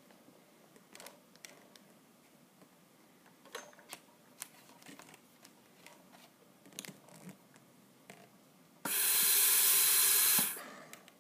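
Bird Mark 8 respirator delivering one breath: a loud gas hiss for about a second and a half near the end, then it stops as the pressure-cycled machine ends inspiration. Before it, faint scattered clicks from the controls and circuit being handled.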